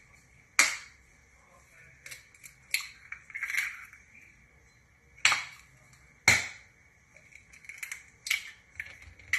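Eggs being cracked open over a stainless steel mixing bowl: a run of short, sharp taps and cracks, the loudest two about five and six seconds in, over a faint steady high whine.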